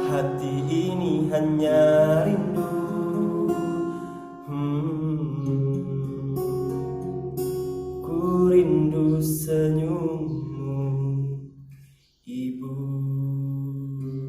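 Song outro on acoustic guitar, with a singing voice holding long wavering notes. The music cuts out for a moment about twelve seconds in, then a final chord rings and fades.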